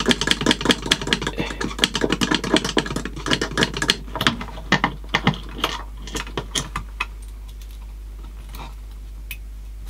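Rapid clicking, rattling and scraping of metal parts as a cassette deck's metal front panel is worked loose from the chassis. The clicks thin out to a few scattered ones about seven seconds in, over a low steady hum.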